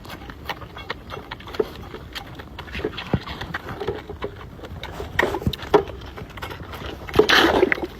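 Young farm animals moving about, with scattered knocks and taps and a louder short burst near the end.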